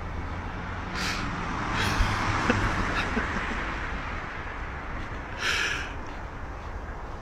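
Leafy tree branch rustling and shaking in bursts as a dog hangs and swings from it by its teeth, over a low steady rumble. The longest rustle comes about five and a half seconds in.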